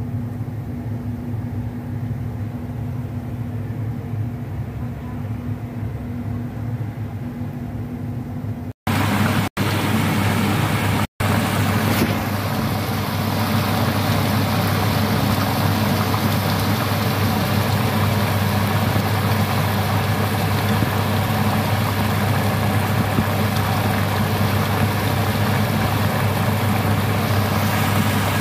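Meat-stuffed bitter gourd slices frying in a pan: a steady sizzling hiss over a low hum. For the first nine seconds only the quieter hum is heard, then after a few short breaks the sizzle comes in.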